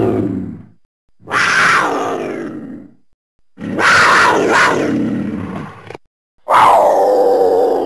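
Troodon dinosaur creature sound effect: a run of loud, raspy calls, each about two seconds long and falling in pitch. The tail of one call fades right at the start, then new calls begin about one, three and a half, and six and a half seconds in, with the last one trailing off into a fading ring.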